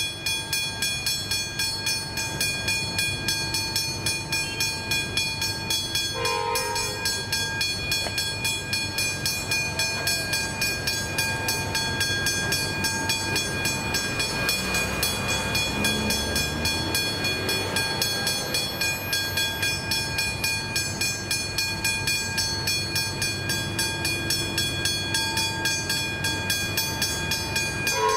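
Westinghouse hybrid electronic level-crossing bells ringing in a rapid, even rhythm of struck tones. A train horn sounds briefly about six seconds in and again at the very end.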